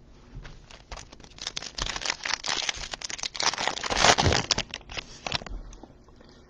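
Crinkling and tearing of a trading card pack's foil wrapper, a dense run of crackles that builds to its loudest about four seconds in and dies away a second or so later.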